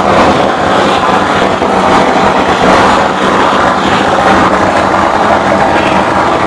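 Harsh noise music played live on electronic gear through amplifiers: a loud, steady, unbroken wall of noise with no beat or tune.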